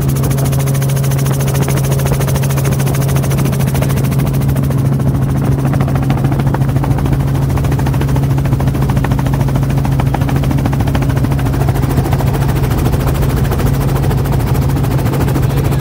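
Helicopter heard from inside its cabin: a steady, loud drone of engine and rotors with a strong low hum.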